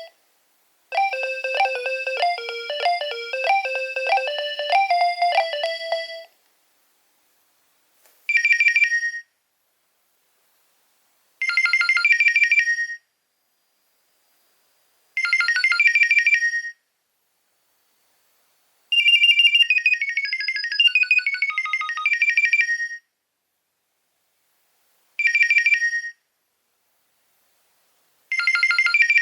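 Nokia 2300 ringtones playing through the phone's own small speaker. One polyphonic tune runs from about a second in to about six seconds. Then six short jingles follow, each cut off by a few seconds of silence, one of them a longer falling run of notes.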